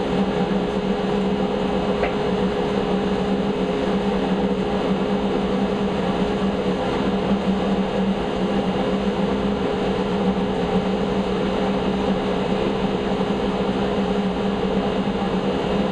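Shop dust collector running steadily with an even hum.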